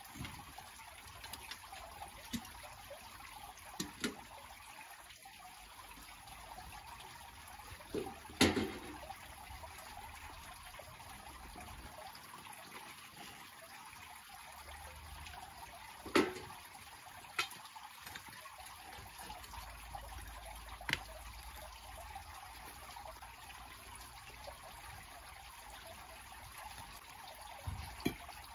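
A steady hiss with scattered sharp metal clinks and knocks as a skimming ladle works dross off a crucible of molten aluminium. The loudest knock comes about eight seconds in, and another about sixteen seconds in.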